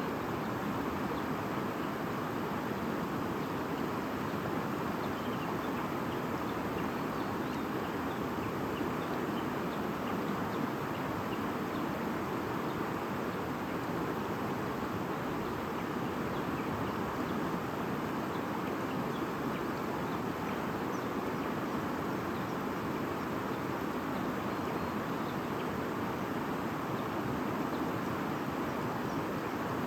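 Stream babbling steadily over rocks, with faint, scattered bird chirps above it.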